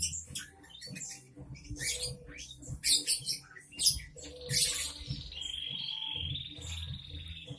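Songbird calls: a quick run of sharp, high chirps, then a steady high trill starting about two thirds of the way through and lasting about two seconds.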